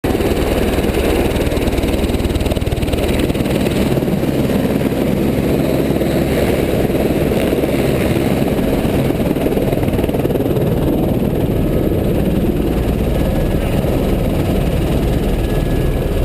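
Helicopter engine and rotor noise, loud and steady throughout.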